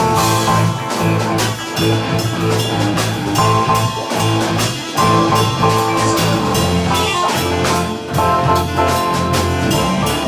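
Instrumental jazz-fusion jam: a drum kit keeps a steady beat under sustained chords.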